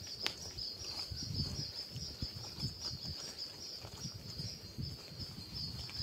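A high-pitched insect chorus trilling steadily with an even pulse, over low rustling and handling noise, with a single click near the start.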